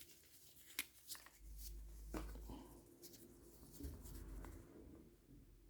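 Faint handling noises of a piece of tape being worked with gloved fingers: a few light clicks and rustles over a low rumble.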